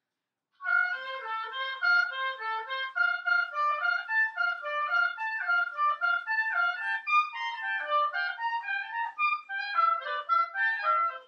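Oboes playing a fast passage of short, separated notes, starting just under a second in.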